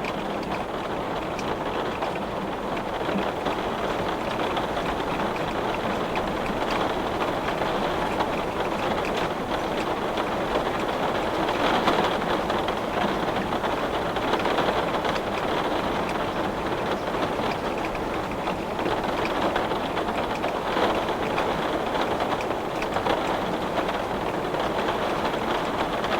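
Heavy rain pelting a glass window pane in a steady, dense patter.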